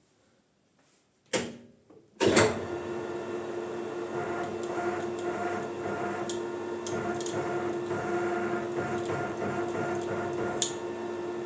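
A click, then a Maximat metal lathe starts about two seconds in and runs steadily at its lowest speed setting with an even motor hum.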